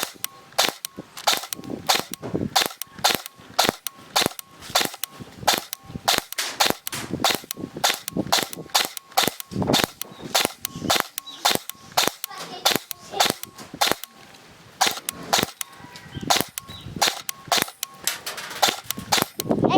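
Airsoft gun firing a long string of sharp shots, about three a second, with a brief lull about fourteen seconds in.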